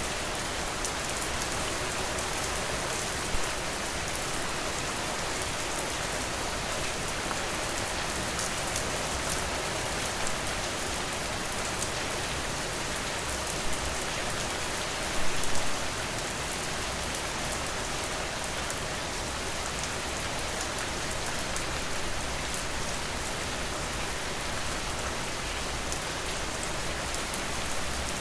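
Steady, even rain falling, with a few louder taps here and there, the loudest a short cluster about halfway through.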